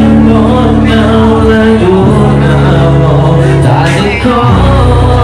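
A man's voice performing into a microphone live over a backing track played through a PA speaker. The backing track has long, deep bass notes that change pitch a little before two seconds in and again about four and a half seconds in.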